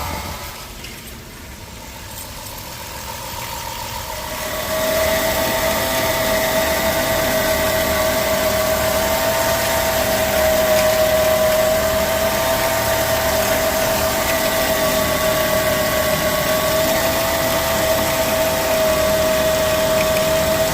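2005 Dodge Caravan engine running, with a steady whining tone from the accessory belt drive (alternator, water pump, idler, tensioner, A/C compressor or power steering pump). The noise is absent with the belt off. It drops in level for a few seconds after the start, then holds steady.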